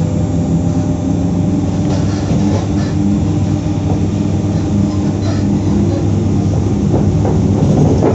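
Stationary Z 20835, a Z2N (Z 20500) double-deck electric multiple unit, giving off a steady electrical hum from its onboard equipment, with several held low tones that shift slightly now and then, and a few light clicks.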